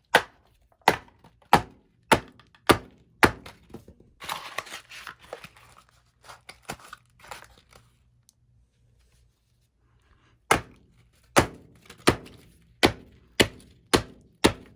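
Repeated sharp thuds, about one every half second, in two runs of six or seven, with a stretch of rustling between them.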